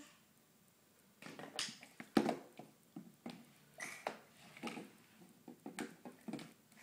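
Irregular light taps and knocks, starting about a second in, as a crawling baby's hands slap a hardwood floor and a small plastic toy bumps against the floor and baseboard.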